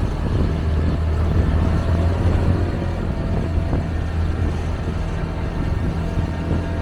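A small passenger boat's engine running steadily under way, a constant low hum, with a wash of noise over it.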